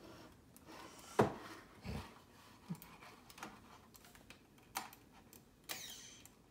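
A toddler's hands clicking and knocking a computer mouse against a small wooden bench: scattered faint clicks and taps, with a louder thump about a second in and another just after.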